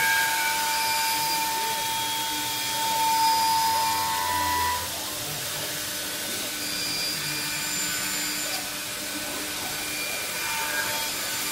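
Bacci Double Jet CNC machining centre running: a spindle motor whines on a steady high tone that rises slightly and stops about five seconds in, over a steady rush of machine noise that then carries on a little quieter.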